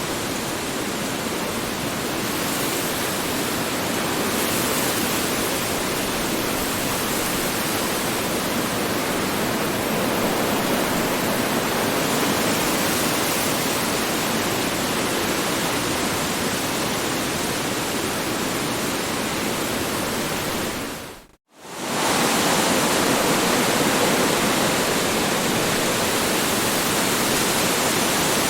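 Strong wind blowing as a steady, dense rushing noise. It fades out to silence for a moment about three-quarters of the way through, then comes straight back.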